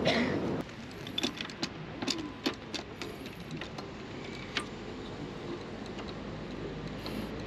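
A string of sharp clicks and light knocks over a steady low background, thinning out after about three seconds.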